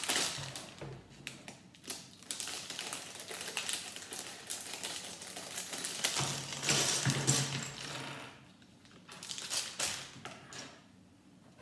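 Plastic Lego parts bag crinkling as it is handled and torn open, then small plastic Lego pieces clicking and clattering as they are spread on a wooden table near the end.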